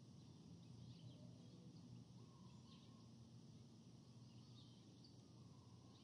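Faint forest ambience: scattered short bird chirps over a steady low background hum.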